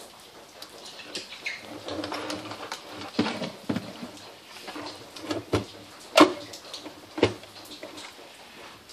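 Clicks and knocks of a car stereo head unit and its metal side mounting brackets being handled and set down on a workbench, the loudest knock about six seconds in.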